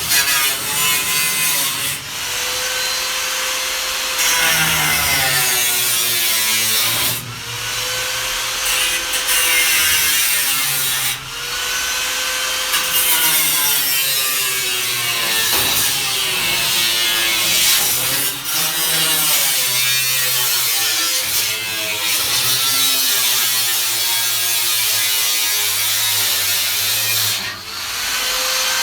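A power tool cutting through the steel front wing of a classic Mini. It runs high and steady when free, then its pitch sags each time it bites into the metal and climbs back as it eases off, many times over.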